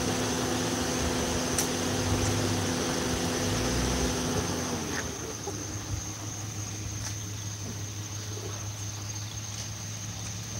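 Motor vehicle engine idling: a steady droning tone over a low hum, the drone stopping about five seconds in while the low hum and a thin high whine carry on.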